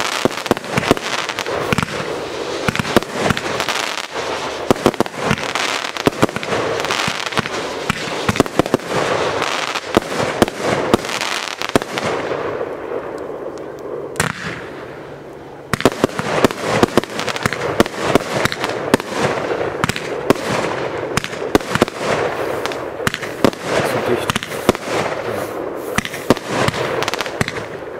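Large fireworks display: aerial shells bursting in rapid, overlapping bangs with crackle. The barrage dies down about halfway through, then starts again abruptly with a fresh run of bangs.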